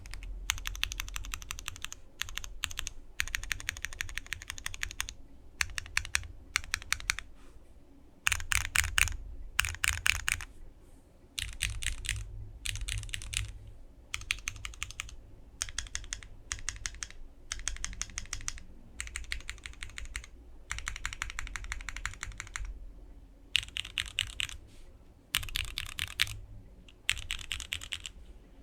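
Typing on a Monokei Kei v2 65% mechanical keyboard with linear Cherry MX2A Black switches, an aluminium plate, no foam and ABS doubleshot keycaps. Fast runs of keystrokes come in bursts of one to two seconds, with short pauses between.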